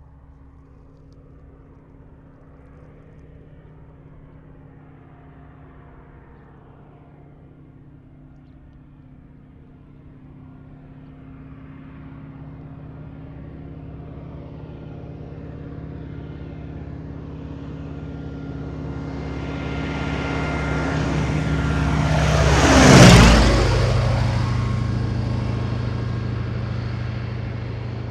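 Single-engine propeller airplane flying past. It approaches steadily louder, passes close about 23 seconds in with its engine note dropping in pitch, then recedes.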